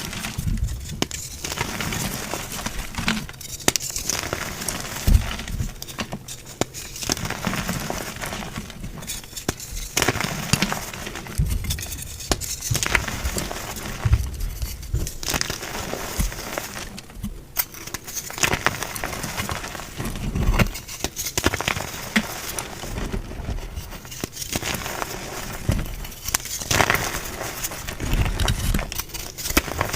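Blocks of gym chalk being crushed, a run of dry crunching and crumbling with sharp crackles and short pauses between squeezes.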